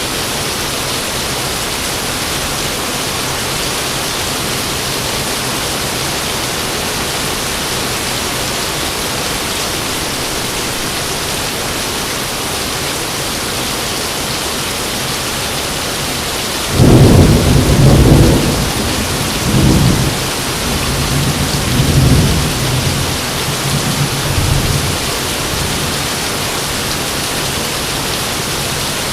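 Steady rain hissing, then a little over halfway through a sudden loud clap of thunder that rumbles on in several rolling swells for about eight seconds before dying away under the rain.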